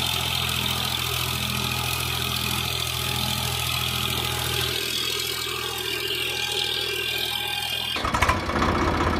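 Tractor engine sound running steadily at idle, changing abruptly about eight seconds in to a louder, fast pulsing engine sound.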